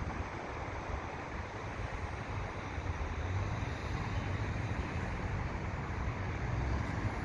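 Steady outdoor rumble with wind buffeting the microphone, growing slightly louder near the end.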